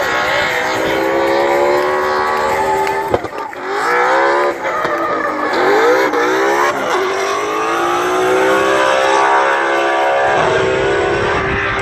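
Drift car's engine revving hard as it slides sideways, its pitch climbing and dropping again and again, with a sharp crack about three seconds in.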